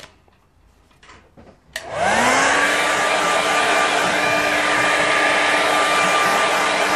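A handheld hair dryer switched on with a click about two seconds in, its motor whine rising quickly as it spins up, then blowing steadily to dry wet watercolour paint.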